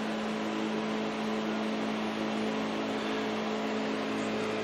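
Steady hum of an electric motor running, a whirring hiss with a few held low tones that do not change.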